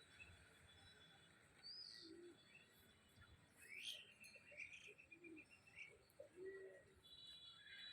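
Faint bird calls: a short high chirp, then a run of rapid notes lasting about two seconds, with another brief call near the end.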